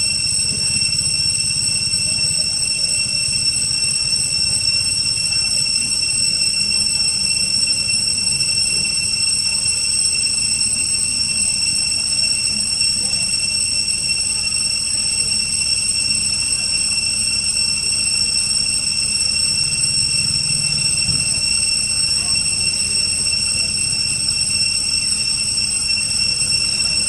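Insect chorus: a steady high-pitched whine of several even tones, unchanging throughout, over a faint low rumble.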